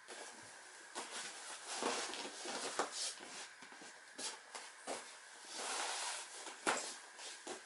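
Bare skin, hands and legs shifting and sliding on a vinyl-covered folding gym mat: irregular rustles and scuffs with a few short sharp taps.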